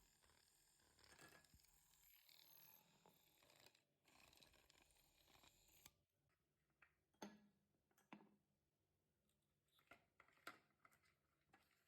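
Faint handling sounds of packaging being unboxed: a soft, continuous rustle for about the first half, then scattered light taps and clicks.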